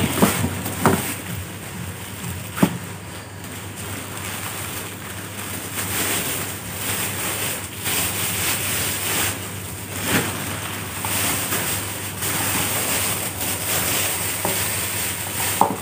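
Clear plastic wrapping rustling and crinkling as a packed item is unwrapped by hand, with a few sharp knocks of the item being handled.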